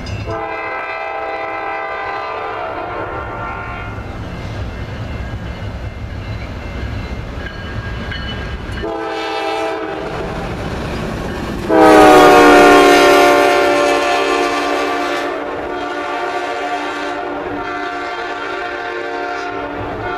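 Air horn of Norfolk Southern GE C40-9W locomotive 9826 sounding as it leads a train past. There is a long blast, a short one about nine seconds in, then a much louder long blast as the locomotive passes close, fading as it goes away. Under it runs the steady rumble of the locomotive and the wheels on the rails.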